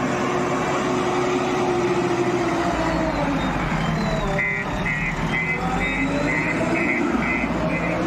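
JCB Eco Xpert backhoe loader's diesel engine running under load, its pitch dropping and then rising again as the front loader works. From about halfway, its reversing alarm beeps about twice a second.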